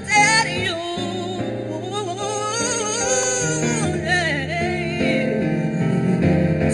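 A woman singing a slow soul ballad live, with long wordless melismatic runs and vibrato, over sustained instrumental accompaniment.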